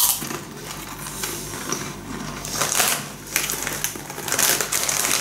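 Irregular crunching and rustling close to the microphone as snacks are chewed and handled, with a few louder bursts about halfway through and again near the end.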